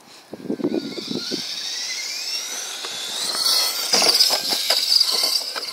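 Electric motor and drivetrain of a Traxxas LaTrax 1/18-scale RC stadium truck, a high whine rising in pitch as the truck speeds up, with a few sharp knocks about four to five seconds in as it goes over a wooden ramp.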